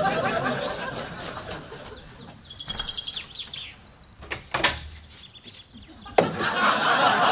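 Footsteps crunching across gravel, a short bird chirp, then two sharp clicks as a wooden front door is unlatched and opened. About six seconds in, laughter breaks out suddenly.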